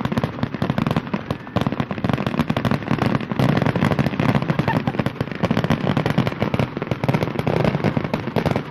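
Fireworks going off in a rapid, unbroken barrage of pops and bangs, many each second, with no pause.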